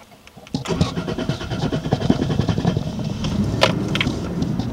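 Toyota Tacoma V6 cranking on the starter with uneven knocks and a low churn, beginning about half a second in after a brief lull. This is the extended cranking of a hard start, which the video puts down to heat soak after an engine swap.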